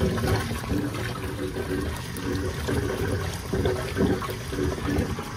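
Water running steadily into a kitchen grease trap through its freshly cleaned inlet, splashing into the tank: the inlet now takes the flow easily. It cuts off suddenly at the very end.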